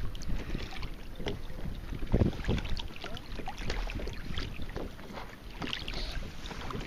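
Small waves lapping and slapping irregularly against a kayak's hull, with wind buffeting the microphone.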